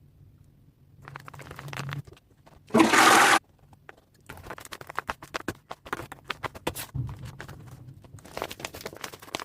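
Paper being handled during crafting: rustling and scraping with many small irregular clicks, and a short loud burst of crinkling noise about three seconds in.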